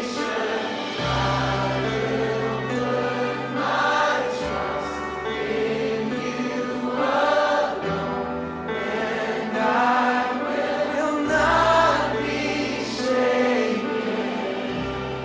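Background music: choir singing over a held bass line that changes note every few seconds.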